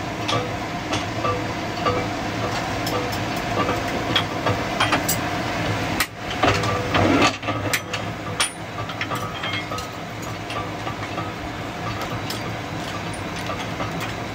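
Nail-making machine running in a factory: a steady mechanical hum with a regular clicking and metal clinks, and a louder clatter for about a second and a half midway.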